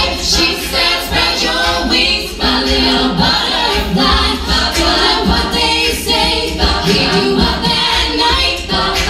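All-female a cappella group singing through microphones, lead voices over a backing choir, with a steady beat.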